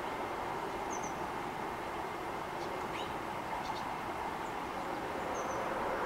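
Steady hum of distant traffic, with a few faint, high chirps of small birds scattered through it.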